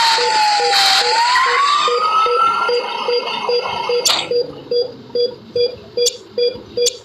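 Ambulance siren wailing: its pitch falls, then rises again and cuts off about three seconds in, leaving a steady beeping of two or three beeps a second. A few sharp clicks come near the end.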